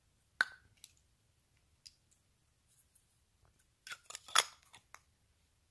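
Small plastic clicks and a short rattle as an AA battery is fitted into a Philips Series 3000 nose trimmer and its twist-off body is handled: one sharp click about half a second in, a few faint ticks, then a quick cluster of clicks about four seconds in.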